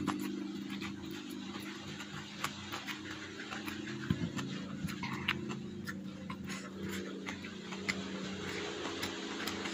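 Close-up chewing and mouth sounds of someone eating a handful of rice and stir-fried water spinach: wet smacks and crunchy clicks, irregular, over a steady low hum.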